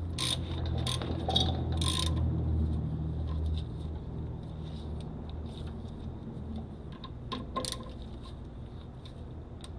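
Hand tools working on a brake caliper: a few sharp metallic clicks and scrapes in the first two seconds and one more near the end. Under them runs a low hum that fades about three and a half seconds in.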